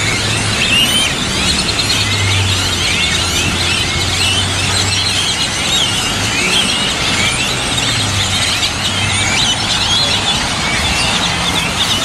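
A huge flock of blackbirds perched in a tree and on power lines, a dense, unbroken chorus of high-pitched, squeaky chattering calls from many birds at once, with a low hum of traffic underneath.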